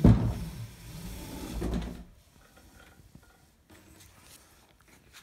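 A loud thump, then a second or two of low rumbling and rattling that dies away: a plastic kayak let down on a bike-hoist pulley rope and settling onto the floor.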